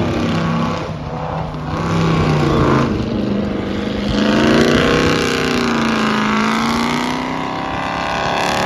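Tank-style tracked vehicle's engine running as it drives and turns on dirt. The engine note holds steady for the first few seconds, then revs up and down, highest about halfway through.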